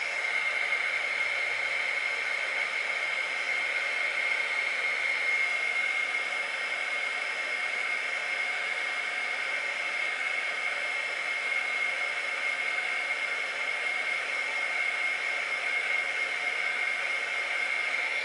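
Craft heat tool running steadily: a blowing fan with a high whine over it. It cuts off right at the end.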